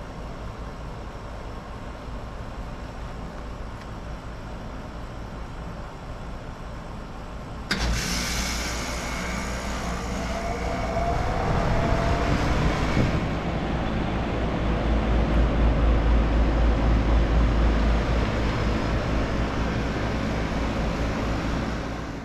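2018 Aire-Flo 4HP15 heat pump outdoor unit running, then a sudden loud whoosh of refrigerant about eight seconds in as its reversing valve shifts, hissing for several seconds with a rising tone. The unit then runs louder, typical of a heat pump ending its defrost cycle and going back to heating.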